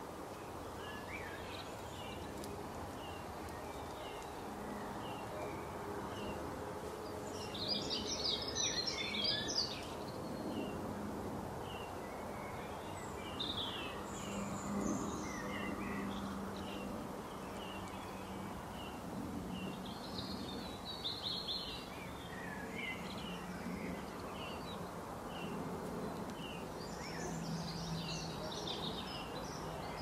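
Songbirds chirping over a steady outdoor background, with short repeated chirps throughout and denser bursts of song about eight, fourteen, twenty and twenty-seven seconds in.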